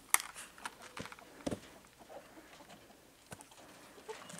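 Faint, sparse clucking of hens, with a few sharp short clicks and knocks.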